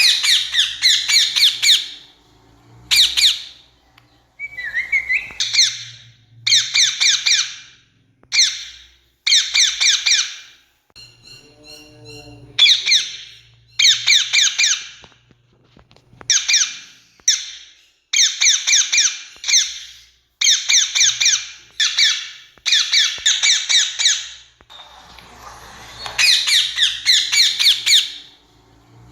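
Rose-ringed parakeets giving loud, harsh screeching calls in rapid strings, burst after burst with short gaps between.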